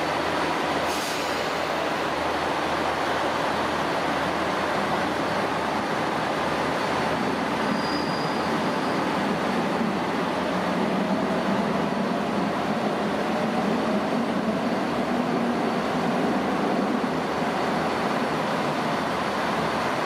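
Electric limited express train pulling out of the platform, its cars running past with a steady rumble and rail noise. A brief high squeal comes about eight seconds in, and a faint rising whine follows.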